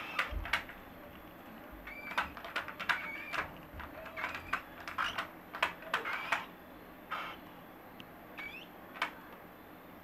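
Baby cockatiels giving short chirps that bend up and down in pitch, among frequent sharp clicks and taps as the birds move about the wire cage. The clicking thins out after about seven seconds.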